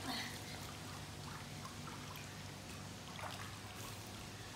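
Swimming-pool water lapping and trickling, with a few faint ticks and a low steady hum underneath.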